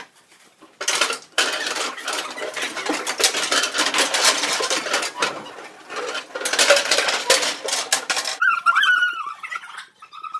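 Rapid, dense clattering and clinking that starts about a second in and stops abruptly about eight and a half seconds in. It is followed by a short, wavering, high-pitched call.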